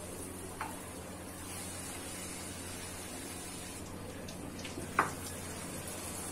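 Puris deep-frying in hot oil in a pan, a steady sizzle. A small tap comes about half a second in and a sharper knock about five seconds in, as the spatula and puris are handled.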